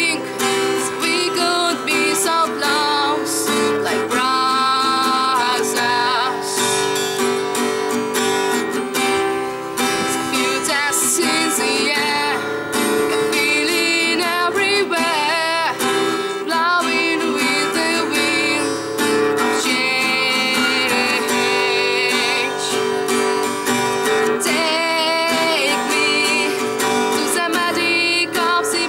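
A woman singing a rock song with a strummed acoustic guitar accompaniment.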